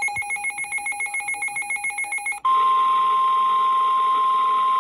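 A fast electronic trill pulsing about seven times a second. About two and a half seconds in it switches abruptly to a loud, steady single-pitched tone, the NOAA Weather Radio 1050 Hz warning alarm tone.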